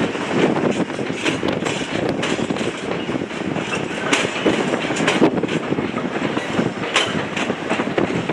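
A train passing on the rails, a steady rumble with its wheels clicking irregularly over the rail joints.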